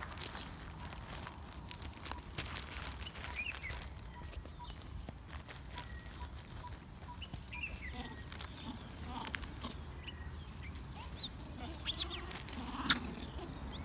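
Faint, scattered bird chirps over a steady low rumble, with a few light clicks and one sharper click near the end.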